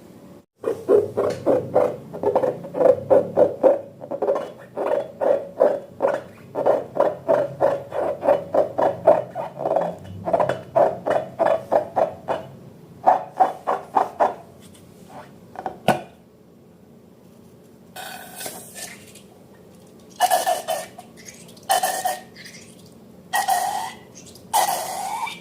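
Slime being worked: rapid rhythmic squishing strokes, about three or four a second, for the first half, then a sharp click and a few longer, separate squelches near the end.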